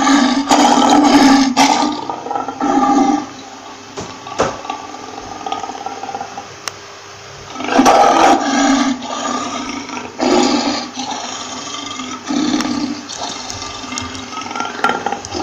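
Lion roaring: a series of loud, pitched bursts a second or two long, several in a row with quieter gaps between.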